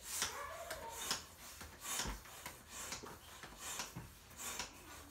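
Hand balloon pump being worked steadily, a short puff of air with each stroke, about seven strokes at a bit more than one a second, as it inflates a latex balloon.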